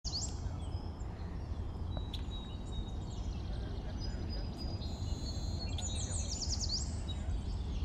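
Wild birds calling over open country: short high chirps, thin whistled notes and trills, with a quick run of sweeping notes about six seconds in. A steady low rumble lies underneath.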